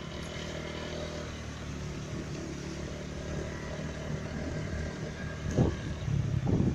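Small motorbike engine running steadily, growing louder with a few short swells in pitch near the end.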